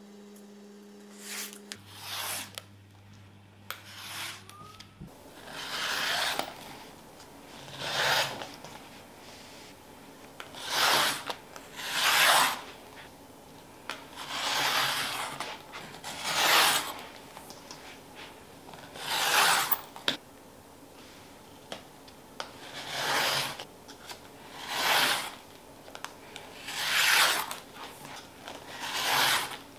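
Rotary cutter rolling through layered fabric along an acrylic ruler on a cutting mat: about a dozen separate cutting strokes, each under a second, one to three seconds apart.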